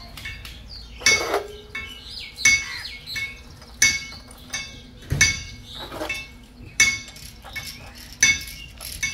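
A hammer striking metal in a steady rhythm: six ringing blows, about one every second and a half, with lighter clinks between them.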